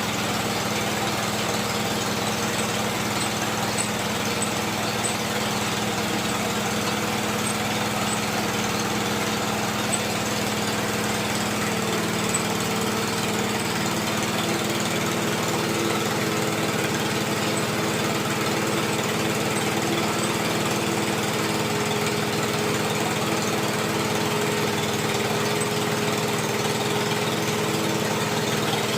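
Small engine of a water-well drilling machine running steadily under load, its note shifting slightly about halfway through.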